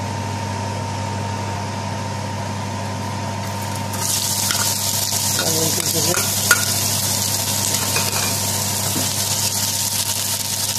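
A steady hum, then sliced onions hitting hot vegetable oil in a non-stick frying pan about four seconds in, starting a steady sizzle. The onions are stirred with a spatula, with a few light ticks and one sharp tap.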